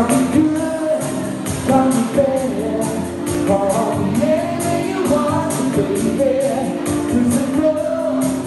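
Male tribute singer singing live into a microphone over a pop backing track, with bright percussion ticking in a steady beat about four times a second. It is recorded on a phone.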